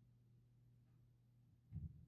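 Near silence: a faint steady low hum, with a faint tick about a second in and a soft low thump near the end.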